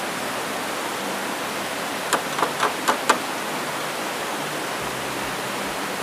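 A rushing stream of white water tumbling over rocks beside wooden water mills: a steady, even rush. About two seconds in come five quick sharp knocks in a row.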